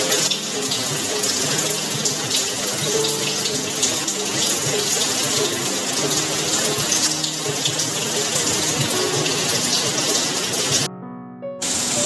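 Heavy rain pouring and splashing, a steady rush, with music underneath. The rain sound cuts out for under a second near the end, leaving only the music, then comes back.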